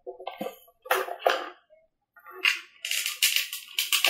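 Handling noise from an RC model jet airframe on a workbench. A few light knocks and clatters come first, then a couple of seconds of dense rustling and scraping as the model is lifted and turned.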